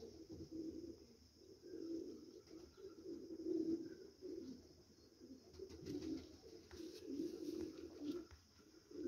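Domestic pigeons cooing, a run of low, rounded coos repeating about once a second.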